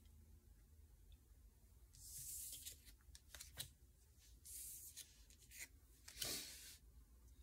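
Oracle cards being slid across a cloth mat and gathered up by hand: three soft sliding rubs, with a few light taps of card between them.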